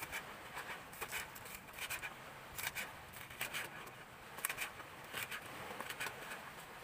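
Kitchen knife knocking on a cutting board as garlic and green vegetables are sliced, in irregular quick clusters of knocks.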